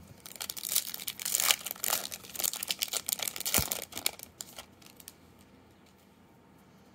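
Foil wrapper of a Topps Chrome trading card pack being torn open and crinkled by hand as the cards are pulled out. The crackling runs for about four and a half seconds, then stops.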